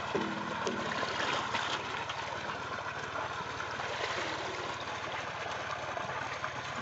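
Pond water trickling and sloshing through a perforated plastic colander of tilapia fingerlings held in the water, steady throughout.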